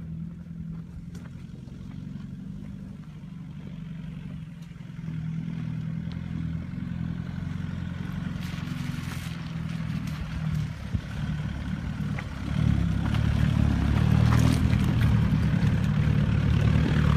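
Mitsubishi Pajero 3.2 DiD's four-cylinder turbodiesel running at low revs as the SUV crawls over loose rocks, growing clearly louder about twelve seconds in as it draws near. Stones crunch and knock under the tyres.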